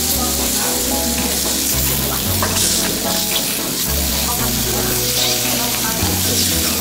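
Steak sizzling on a hot iron sizzle plate, a steady hiss, with light background music underneath.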